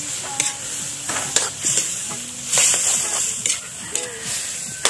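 Metal spatula scraping and clinking against a metal wok as octopus is stirred in sauce, a sharp stroke about once a second over the steady sizzle of the simmering liquid.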